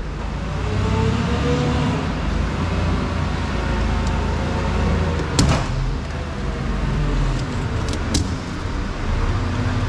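Steady low rumble of an idling vehicle engine with an even hiss over it. Sharp metallic clinks come about five and a half and eight seconds in as the wire-rack scrap is handled.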